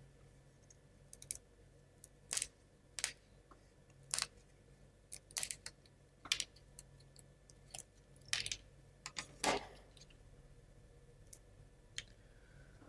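Small laser-cut plywood parts of a model kit clicking and tapping against each other and the table as they are handled and fitted together, in short, irregular, faint clicks.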